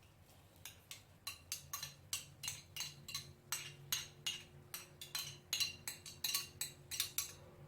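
Quick, regular clinks and knocks of a kitchen utensil, about four strokes a second, over a faint steady hum.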